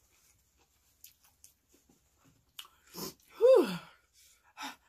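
Soft chewing clicks of crunchy food, then two quick sharp breaths and one loud vocal outburst from a woman that falls steeply in pitch, a reaction to very spicy papaya salad.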